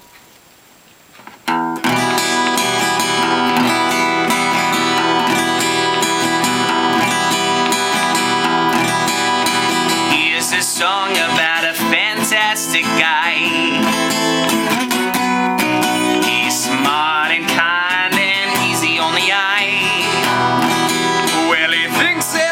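Music led by strummed acoustic guitar, coming in about a second and a half in after a short quiet start.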